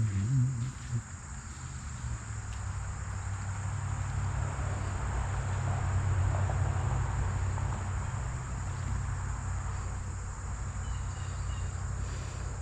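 Insects, likely crickets, trilling in a steady high continuous chorus, over a low steady rumble.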